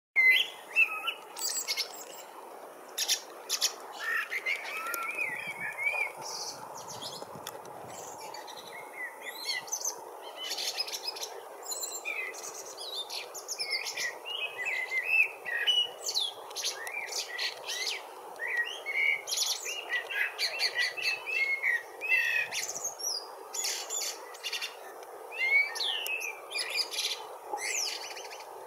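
Common blackbird singing fluted, warbling phrases, mixed with other birds chirping, over a steady background noise.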